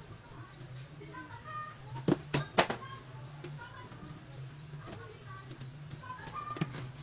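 A bird chirping quickly and steadily, about three short high chirps a second, with other birds calling more faintly, over a low steady hum. About two seconds in come three sharp clinks, a spoon against the drinking glass, with a fainter one near the end.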